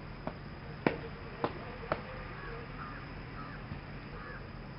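Crows cawing in a string of short calls, about five in the second half, after four sharp clicks in the first two seconds, over a low steady background.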